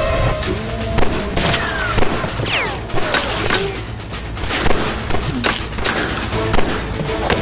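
Action-film soundtrack: score music over a run of loud, sharp, irregular hits.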